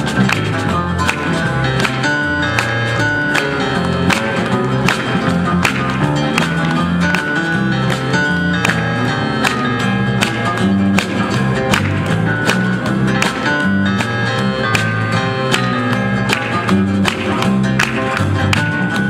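Live instrumental music from several acoustic guitars playing together, with a steady beat and a moving bass line.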